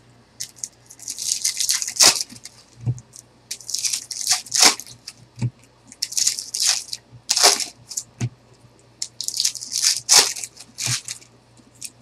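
Trading cards being handled and sorted into piles on a tabletop: an irregular string of short swishing and tapping sounds.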